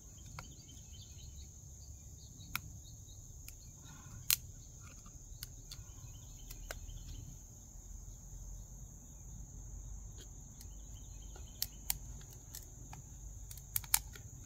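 Sharp metallic clicks of a knife tip working under a can's lid to pry it open: scattered single clicks, the loudest about four seconds in, and a quick cluster near the end. Behind them runs a steady high-pitched insect chorus.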